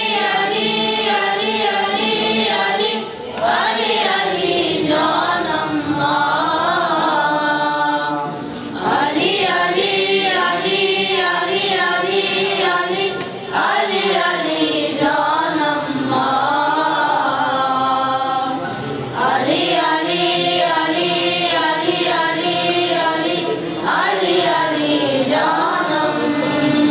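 A group of boys singing a devotional song together, unaccompanied, in long sung phrases with a short breath about every five seconds.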